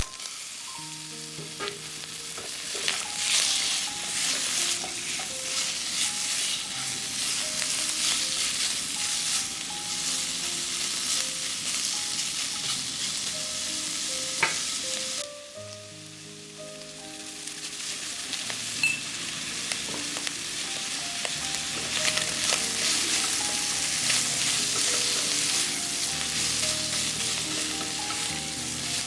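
Stir-fry sizzling hard in a hot pan and being stirred, with scrapes and knocks of the spatula against the pan. The sizzle drops away briefly about halfway, then builds up again. Soft background music plays faintly underneath.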